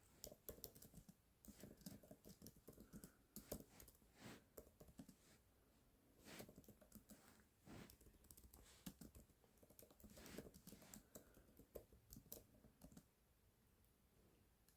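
Faint typing on a computer keyboard: irregular runs of soft key clicks with short pauses between them.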